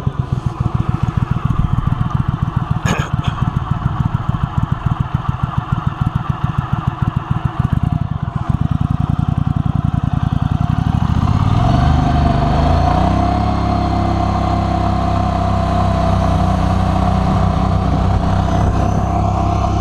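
Mud Buddy Sport V 44 hp surface-drive mud motor idling with an even chugging pulse, then throttled up from about ten seconds in to a steady run at higher revs with a whine over it, pushing the boat under way.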